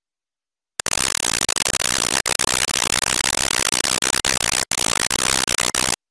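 A burst of loud, static-like hiss on a broken broadcast feed. It starts abruptly about a second in, drops out for an instant a few times and cuts off abruptly near the end.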